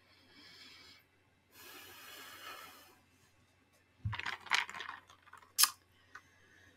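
Ice cubes rattling and clicking in a plastic iced-coffee cup as it is picked up to drink, a cluster of sharp clicks lasting about a second and a half, after a soft hiss earlier on.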